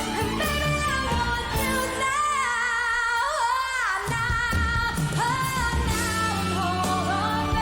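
Female pop singer performing live with a band, holding high, sustained notes with a wide vibrato. The backing drops out for a couple of seconds mid-phrase, leaving the voice nearly alone, then the band comes back in.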